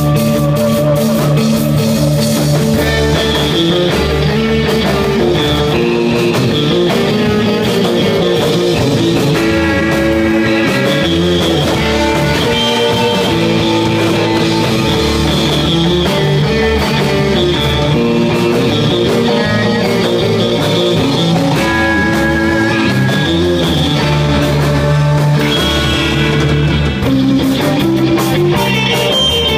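Instrumental surf rock band playing live: electric guitar picking a fast melody over bass and drums, continuous and loud.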